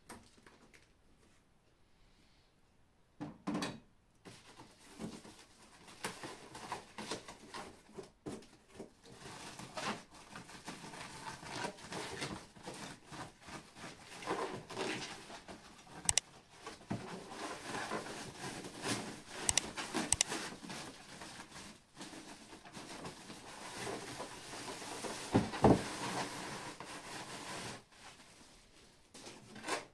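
Monitor packaging being unpacked: a plastic bag and foam insert rustling and crinkling, with scattered knocks and clicks. The first few seconds are nearly quiet, and the sharpest knock comes about 25 seconds in.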